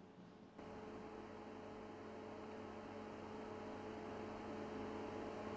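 Faint, steady electrical mains hum with a light hiss, made of a few constant tones. It starts abruptly about half a second in.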